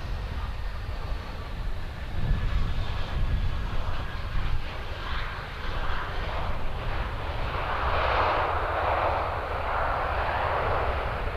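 Airbus A320 jet landing and rolling out along the runway: a steady low engine rumble, with a rushing engine noise that grows louder about eight seconds in and holds as the jet slows.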